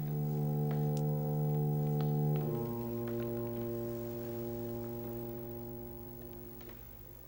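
Music: a low, steady brass-like drone holding one note, stepping down to a lower note about two and a half seconds in, which then slowly fades away.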